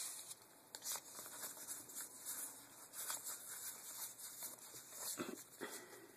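Magic: The Gathering trading cards being slid and flipped through in the hand: a run of faint, soft rustles and rubs, with a duller knock about five seconds in.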